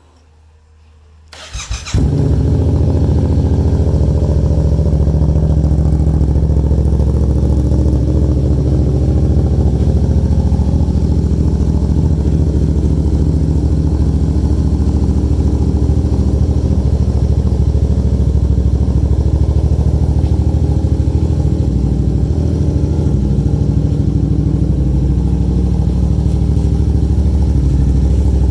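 2017 Yamaha FZ-07's 689 cc parallel-twin engine cranking on the electric starter and catching about two seconds in, then idling steadily.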